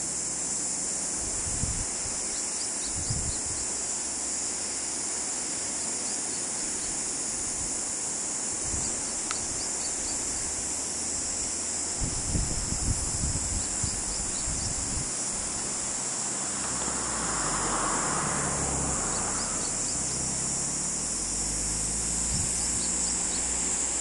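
Steady, high-pitched chorus of insects buzzing without a break, with a few short low bumps and rumbles, a cluster of them about halfway through.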